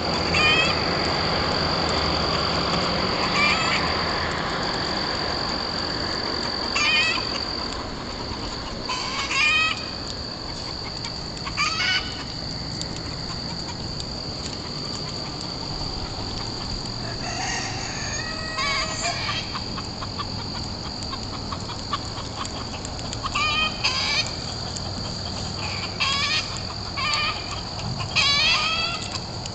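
Outdoor farm ambience: short bird calls every few seconds, heard in small clusters, over a steady high-pitched insect drone. A louder rustling noise fills the first few seconds.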